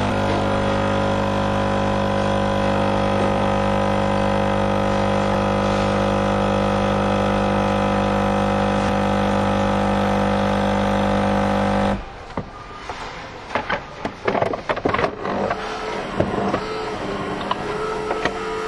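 Coffee machine running with a loud, steady mechanical hum that cuts off suddenly about twelve seconds in. Irregular clicks and knocks follow.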